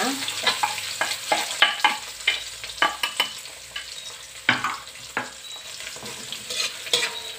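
Chopped shallots, garlic and chillies sizzling in hot oil in a wok, with a steady hiss, while a metal spatula scrapes and knocks against the pan in quick, irregular strokes as the spice paste ingredients are stirred.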